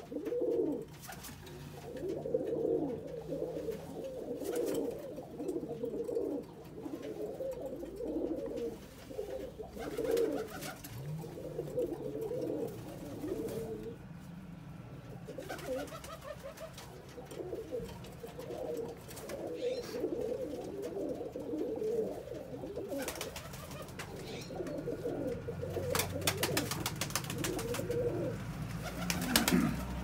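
Domestic pigeons cooing over and over, with a few sharp clattering clicks near the end.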